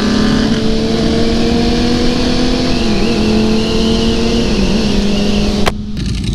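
Sport motorcycle engine running at a steady cruising note, heard from the rider's own bike, with a couple of small dips in pitch midway. A sharp click near the end, after which the engine sound drops.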